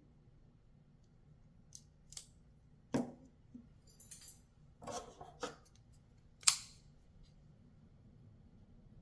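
Titanium-handled folding knife being handled on a hard surface: a scatter of short clicks and light metallic knocks, the loudest a sharp click about six and a half seconds in.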